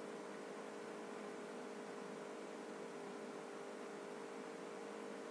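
Quiet steady hiss with a faint, even electrical hum underneath: the background noise of the voice-over recording, with no other sound.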